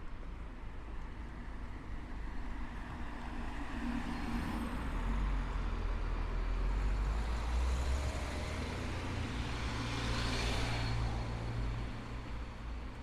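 A heavy motor vehicle passing at street level. Its deep engine rumble swells over several seconds and then fades, with a short burst of hiss as it goes by, about ten seconds in.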